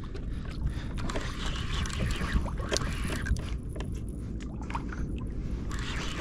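Sea water lapping and splashing against a kayak's hull, with wind rumbling on the microphone and a few small ticks.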